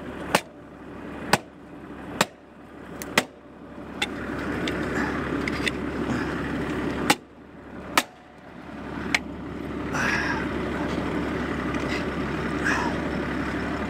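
Tractor engine running with a steady low rumble that grows louder about four seconds in, with several sharp knocks in the first nine seconds or so.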